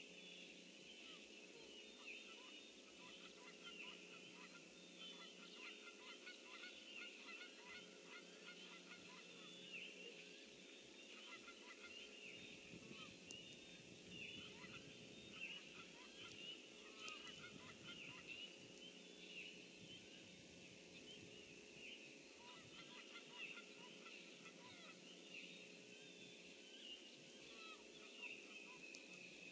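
Faint, dense chorus of many short, high-pitched animal calls from the swamp, going on steadily throughout, over a faint steady low hum.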